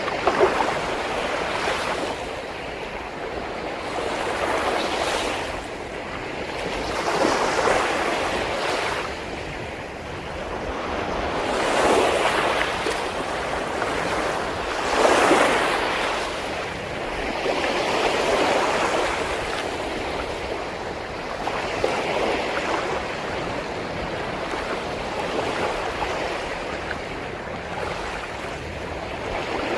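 Sea waves breaking on a beach, the surf rushing in and drawing back in swells about every three to four seconds, one wave near the middle breaking louder than the rest.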